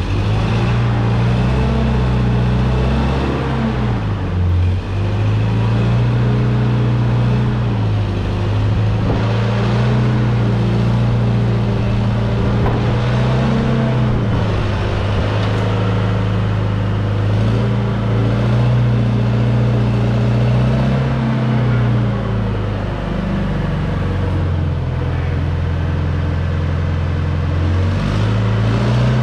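Old Hyster forklift's propane engine, which the owner takes for a flathead Continental four-cylinder, running while the forklift is driven slowly. Its speed rises and falls every few seconds, with a brief dip about four seconds in.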